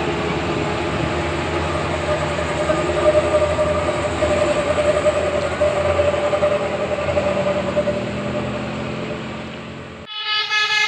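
A large vehicle runs steadily, a noisy rumble with a held drone in it. About a second before the end it cuts off abruptly, and a bus's telolet musical horn starts a tune of quick stepping notes.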